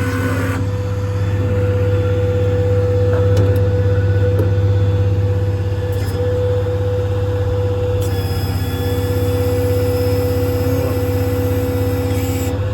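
Ford F550's 6.7 Power Stroke diesel running and driving the truck's hydraulic crane: a steady low drone with a steady whine above it.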